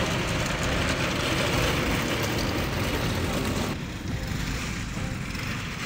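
Homemade tank's engine running as it drives along the road, a loud, even mechanical noise with a strong low end. About four seconds in it drops to a quieter low rumble.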